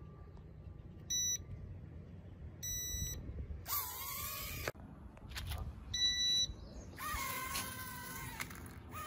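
Mini toy quadcopter drone: three short electronic beeps, and between and after them its tiny motors and propellers spin up into a high-pitched, wavering whine, first as it lifts off about four seconds in, then again as it flies near the end.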